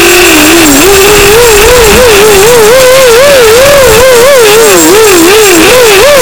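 A drone's electric motors and propellers whining, loud and close as picked up on the drone itself. The pitch wobbles up and down about three times a second, with wider swings near the end.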